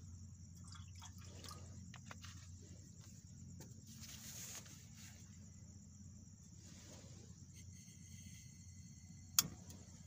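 Portable camping gas stove being lit under a kettle: a faint thin hiss of gas from about two-thirds of the way in, then one sharp igniter click near the end, over a steady low rumble.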